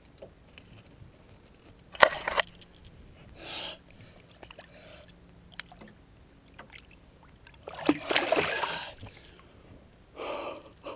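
Several short bursts of splashing water. The loudest and sharpest comes about two seconds in, and a longer one comes about eight seconds in.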